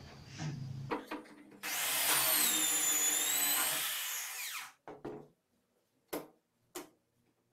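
Corded electric drill boring a hole into a melamine board: the motor runs with a high whine for about three seconds, then winds down and stops. A few light knocks follow as the drill and the workpiece are handled.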